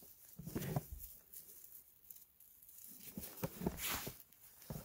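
Two bursts of rustling and crackling, about half a second in and again around three to four seconds in, as a gloved hand digs a matsutake mushroom out of damp conifer needle litter and a rain-jacket sleeve brushes close by.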